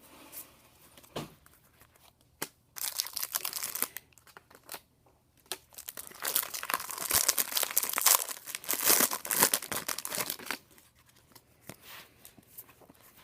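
A trading card pack's wrapper being torn open and crinkled, in two stretches of rustling, the second longer and louder, from about halfway in to near the end.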